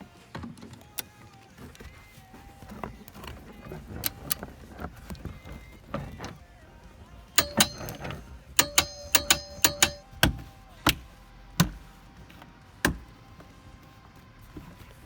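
Car interior hardware being worked by hand: scattered clicks and knocks, with a quick run of sharp metallic clicks and ringing between about seven and ten seconds in, typical of seat-belt buckles, anchors or a ratchet being handled.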